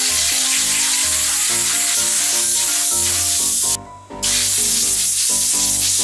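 Compressed-air blow gun hissing loudly through a freshly washed foam air filter to blow it dry: one long blast of about four seconds, a brief break, then a second blast of about two seconds that cuts off sharply.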